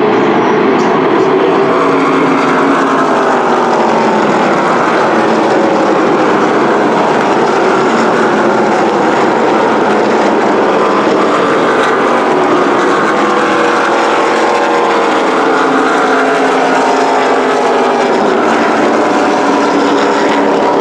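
NASCAR Truck Series race trucks' V8 engines running past, several at once, their pitch rising and falling as they go by.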